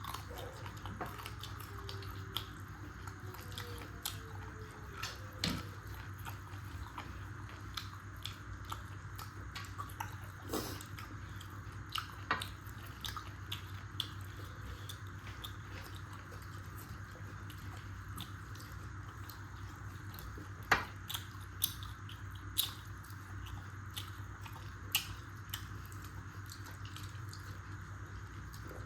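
Close-up eating sounds from a chicken curry and rice meal: chewing with scattered wet mouth clicks and smacks, a few sharper clicks about two-thirds of the way in, over a steady background hum.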